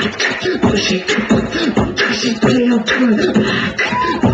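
Beatboxing: a quick run of mouth-made percussion hits mixed with short hummed, bending vocal tones.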